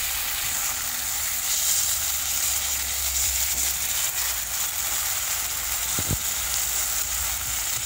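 Small fish in a thick masala sizzling steadily in a wok while a metal spatula gently turns them, with a couple of soft knocks about six seconds in.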